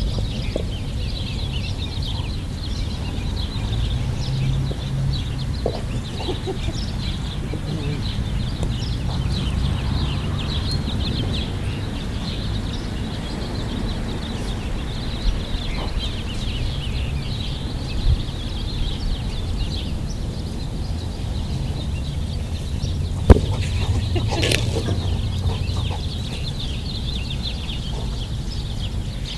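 Many small birds chirping continuously over a steady low rumble, with a few sharp thumps, the loudest about 23 seconds in.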